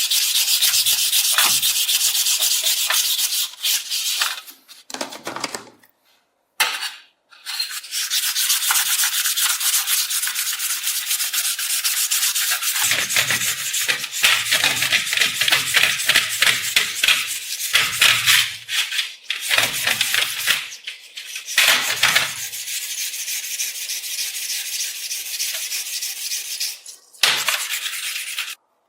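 Abrasive rubbing on the rusty steel of antique scissors: a steady, rapid, hissing scrape from sanding or brushing off the rust. It breaks off briefly a few seconds in, resumes, and stops abruptly just before the end.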